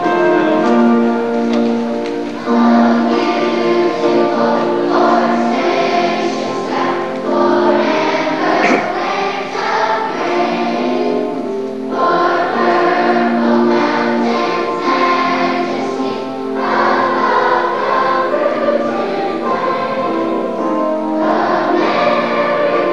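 A children's choir of fourth- and fifth-graders sings a patriotic song together in long held notes.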